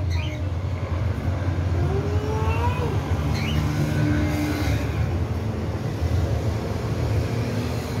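Steady low motor rumble, engine-like, with a few faint high chirps over it.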